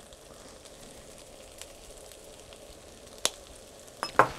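Cubed potatoes frying in a pan on a Trangia camping stove over a low flame: a steady, soft sizzle. A single sharp click comes about three seconds in.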